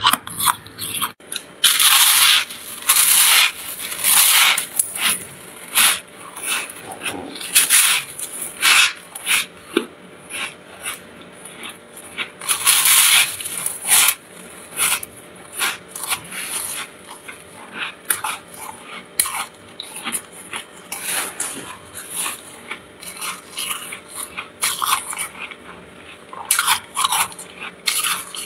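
Freezer frost crunching as it is bitten and chewed: a run of irregular crisp crunches, with longer loud bursts about two seconds in, near the middle and near the end.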